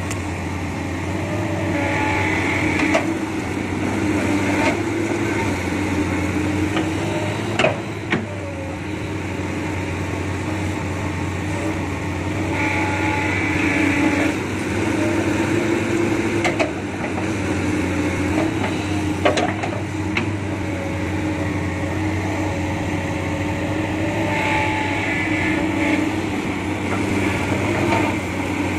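Hydraulic excavator's diesel engine running steadily while it digs soil and loads it into a dump truck. A higher-pitched whine swells three times, about eleven seconds apart, as the machine works under load, with scattered sharp knocks of the bucket and falling earth.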